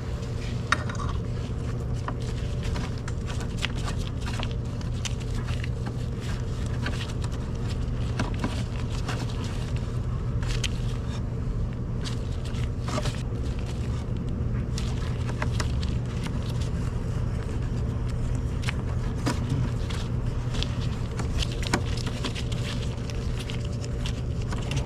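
Scattered light metallic clicks and scrapes of a Time-Sert insert driver and hand wrench turning a steel thread insert into a bolt hole, over a steady low hum.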